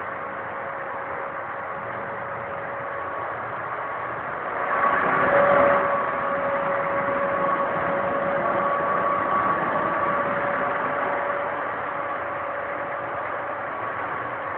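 VTK-24 snow-clearing tram running, a steady vacuum-cleaner-like hum with a held whine. It swells louder about five seconds in, then settles.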